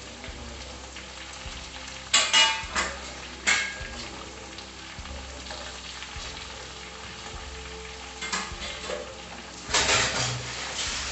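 Marinated chicken pieces sizzling in hot oil in a frying pan, steady throughout. Steel spoons scrape and clink against the pan as the pieces are turned, loudest in a few short bursts about two to three and a half seconds in and again near the end.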